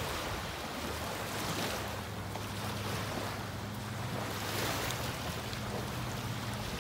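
Small waves washing and lapping onto a sandy shore in slow swells every couple of seconds, with wind on the microphone.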